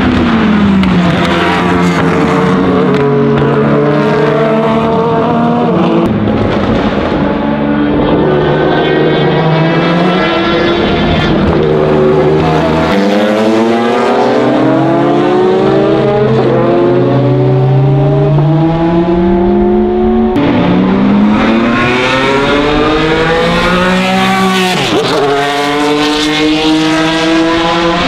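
Pilbeam MP91 prototype's 3.4-litre Willman V6 racing engine at full throttle alongside other racing prototypes. The revs climb and drop repeatedly through gear changes as the cars pass.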